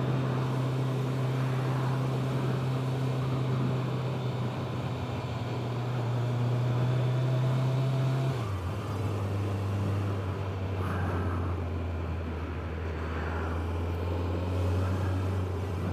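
Honda CBR1100XX Blackbird's inline-four engine running steadily at a town cruise, heard from a helmet-mounted camera. Its note drops to a lower pitch about halfway through.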